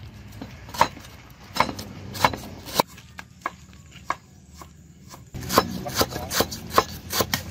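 Cleaver chopping lemongrass on a wooden chopping block: sharp knocks, spaced out at first, then quicker and louder, about three a second, from about five seconds in.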